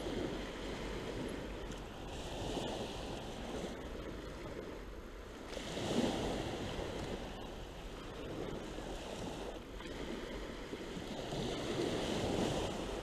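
Sea waves breaking on a sandy beach, the surf swelling and fading about every three seconds.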